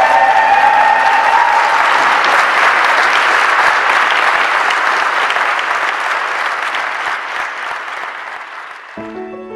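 Wedding guests applauding the newly pronounced couple, with cheering in the first couple of seconds. The applause slowly fades, and piano music comes in abruptly near the end.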